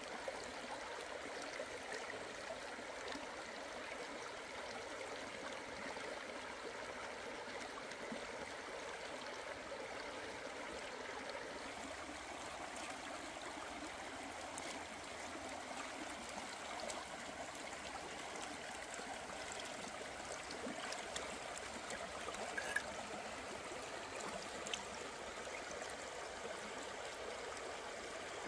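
Steady rushing of a flowing stream, with a few faint clicks over it.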